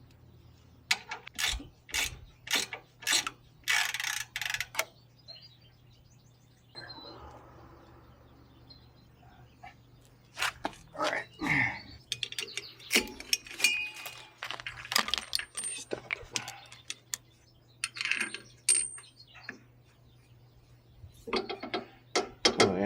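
Irregular metal clinks and clanks of hand tools and shock-absorber hardware being handled during suspension work, a few of them ringing briefly.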